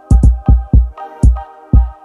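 Electronic background music: a deep, booming kick drum in a quick steady beat, with sharp hi-hat or clap hits over held synth chords.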